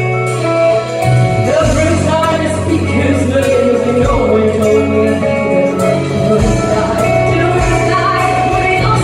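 Live rock band music: a woman singing over electric guitar and the band, with her voice coming in about a second and a half in.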